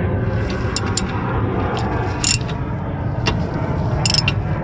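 Ratchet turning a threaded wheel-bearing press tool on a rear hub, giving a handful of separate sharp metallic clicks over a steady low rumble.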